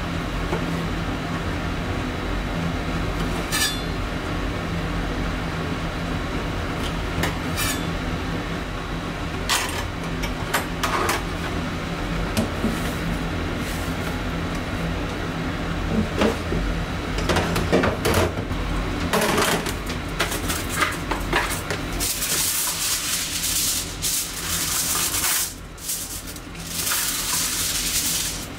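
Kitchen prep sounds: scattered clicks and knocks of a knife and utensils on a plastic cutting board and counter over a steady low hum. In the last several seconds, aluminium foil crinkles and rustles as it is pulled off the roll and spread out.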